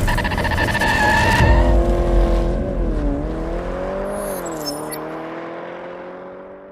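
Produced intro sound: a race-car engine revving, its pitch rising and falling, and fading out smoothly.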